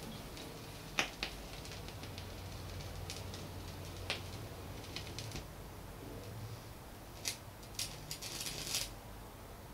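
Thorens TD 295 MK IV turntable after the music has ended: a faint low hum with scattered clicks while the stylus sits in the record's run-out groove. A cluster of clicks comes near the end as the tonearm is handled and lifted off the record.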